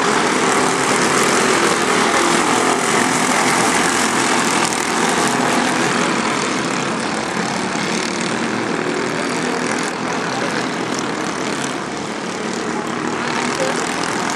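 A racing kart's engine running hard at speed, with a rushing noise over it. It eases off slightly about ten seconds in, then picks up again near the end.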